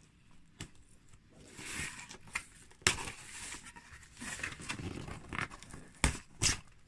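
A cardboard mystery box being opened by hand: tearing and rustling of packaging, with a few sharp knocks or clicks.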